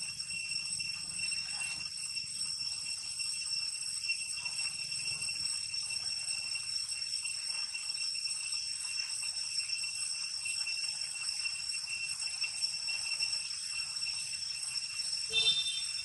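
Steady high-pitched insect drone, a whine with several held tones stacked together, with a short squeak near the end.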